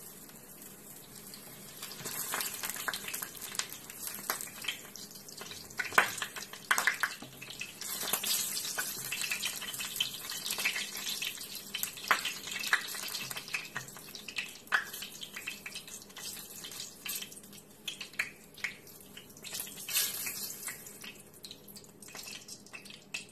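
Hot oil sizzling in a frying pan as fried eggplant slices are lifted out one by one, with scattered clicks and scrapes of a utensil against the pan.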